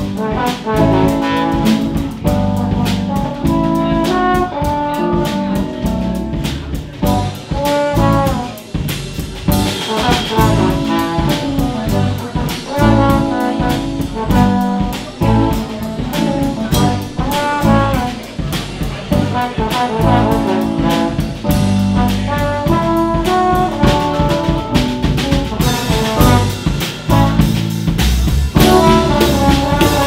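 Live band music: a trombone plays the lead melody over a drum kit keeping a steady beat.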